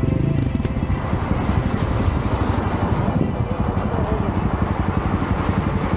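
Off-road enduro motorcycle engine running while riding over rough ground, a loud, steady, pulsing engine noise.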